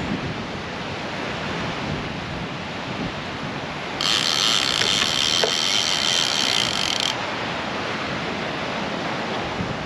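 A fishing reel buzzing as line is pulled off it, starting suddenly about four seconds in and stopping sharply about three seconds later: the fish taking line during the fight. Underneath is a steady rush of noise.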